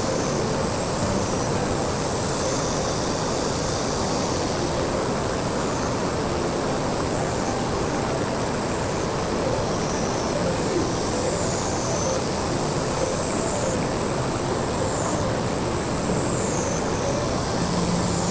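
A waterfall and a fast stream running full after rain, a loud, steady rush of water. Above it a high call repeats every second or two, falling in pitch each time.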